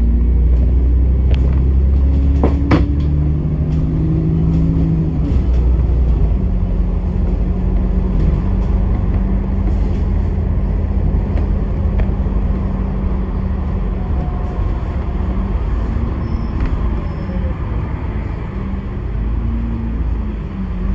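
Bus engine running with a heavy road rumble, heard from inside the bus. The engine note changes pitch in steps over the first few seconds, with a couple of sharp rattles, then holds steady before easing off near the end.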